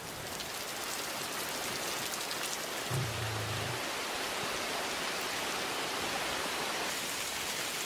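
Rain falling steadily on standing water and wet ground, an even hiss of drops, with a short low hum about three seconds in.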